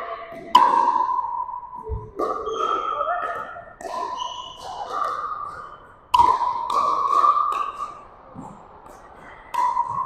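Pickleball paddles striking the hard plastic ball during rallies: sharp pops a second or two apart, each ringing on in the reverberant gymnasium.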